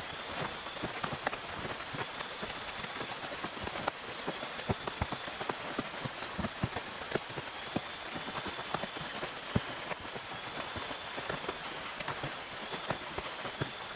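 Steady rain on a tent, with many separate drops striking throughout. A faint high tone comes and goes every second or two.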